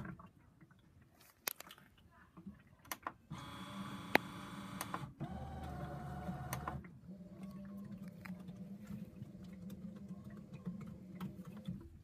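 Small electric motor of a mini LG demo front-loading washing machine humming as it turns the drum with water and clothes inside. It starts about three seconds in after a few sharp clicks, shifts pitch briefly, then runs steady.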